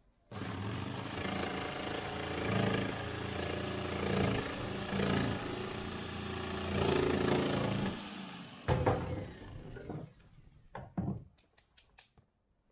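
Corded electric jigsaw cutting through a fibreglass boat deck, running steadily for about eight seconds, then stopping, followed by a few short knocks and clicks.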